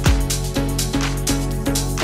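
Electronic background music with a steady beat and held chords.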